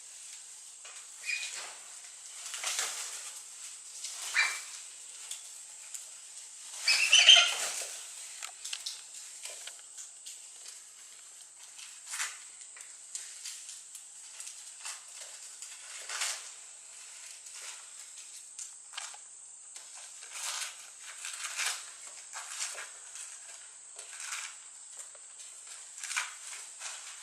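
Cinereous vulture moving about and handling lotus leaves: scattered dry rustles and scrapes, with a louder flurry about seven seconds in.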